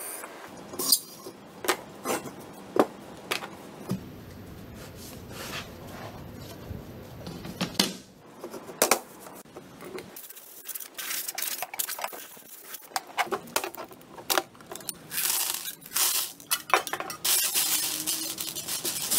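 Empty brass shell casings clinking and rattling as they are spread by hand across a tabletop, dense through the second half. Before that come a handful of sharp metal knocks and a cordless drill running for a few seconds.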